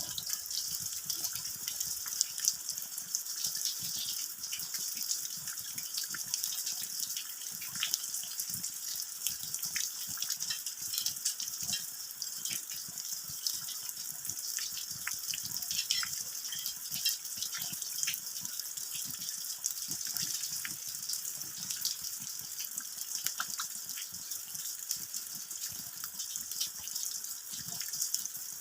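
Steady rain falling on the ground: an even hiss with many separate drop hits throughout.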